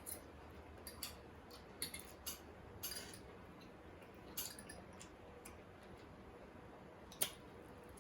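Close-miked eating sounds: scattered sharp clicks and smacks at an irregular pace, the loudest about seven seconds in.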